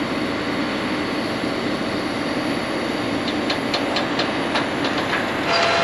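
John Deere 9520RX quad-track tractor running as it pulls an air drill across a field: a steady rumble with faint, regular rattling clicks from about three seconds in. Near the end the sound shifts to a slightly louder steady hum with a high whine.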